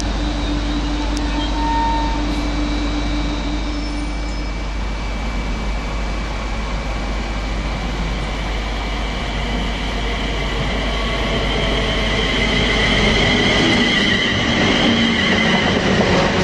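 London Midland Class 350 Desiro electric multiple units. The first pulls away with a steady electric whine that fades within the first few seconds. A second one then approaches and passes close by, its wheel and motor noise rising to a loud rush in the last few seconds.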